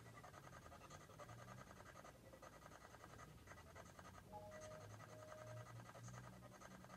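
Near silence: faint room tone with a low hum, and two brief faint tones a little after four and five seconds in.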